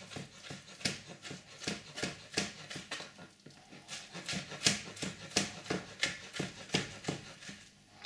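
Kitchen knife slicing soft roast carrots on a chopping board, a steady run of strokes about two to three a second with a short pause about three and a half seconds in.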